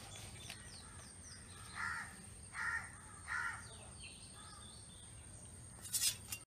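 A crow cawing three times in quick succession, then a fainter fourth call, with small birds chirping faintly. A brief burst of sharp knocks near the end.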